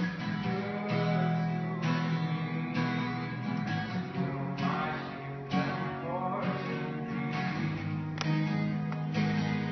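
Live band music led by guitars, playing steady held chords, heard from within the audience.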